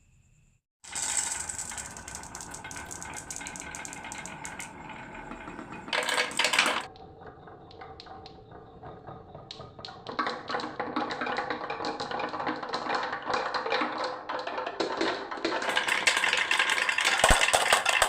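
Marbles rolling and clattering down a wooden HABA marble run. A dense stream of clicks and rattles starts about a second in, with a short loud burst about six seconds in, and builds to a heavier clatter toward the end.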